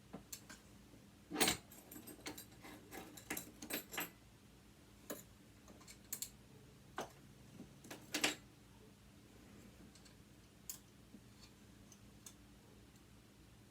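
Small metal tool clicking and tapping against the metal parts of an old sewing machine while being worked into a tight spot: irregular sharp clicks, a quick cluster in the first few seconds, the loudest about a second and a half in and again near eight seconds, then only a few faint ticks.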